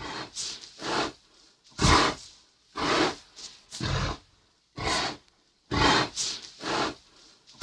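Creature sound effects from the Sound Ideas Series 6000 'The General' library: a string of short, breathy monster snarls and grunts, roughly one a second, each under a second long.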